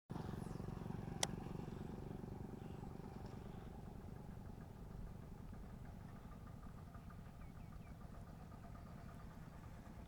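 A small engine running steadily with a low, fast-pulsing rumble that slowly grows quieter, with a sharp click about a second in.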